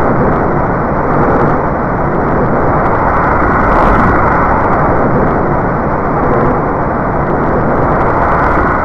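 A designed sci-fi monster sound effect: a loud, steady rushing noise with no clear pitch, heavy in the low and middle range, that starts abruptly and fades out just after it.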